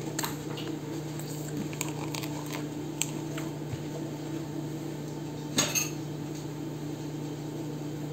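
Light taps and clicks of paper-crafting materials being handled and glued on a work table, with a louder clatter about five and a half seconds in, over a steady low hum.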